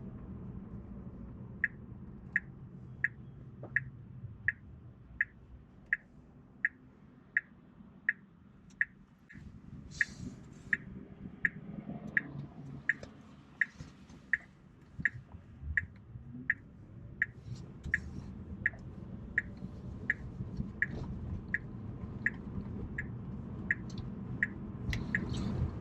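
Tesla Model 3's turn-signal indicator ticking steadily inside the cabin, about three ticks every two seconds, starting about a second and a half in, over low road noise.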